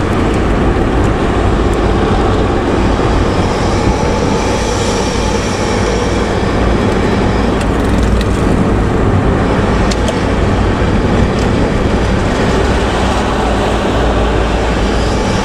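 Front-engined intercity bus running with a loud, steady 'ngorok' (snoring) exhaust, a deep rough note.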